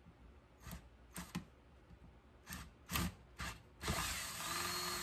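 Old Ryobi drill with a half-inch bit boring into 2-inch PVC pipe: several short jerky bursts as the bit bites and catches the plastic, then about four seconds in the drill runs steadily, cutting through.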